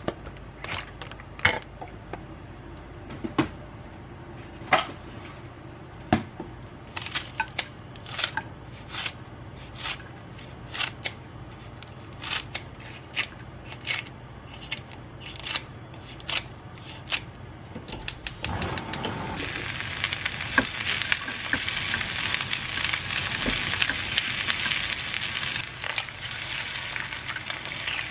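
Kitchen scissors snipping green onion into a frying pan: a series of sharp, separate snips, roughly one or two a second. About two-thirds of the way through, a steady sizzle of frying in the pan takes over.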